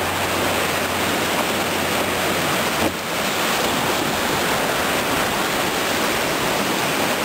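Whitewater rapids rushing steadily close around a cataraft, heard from on board as it enters the rapids, with a single brief knock about three seconds in.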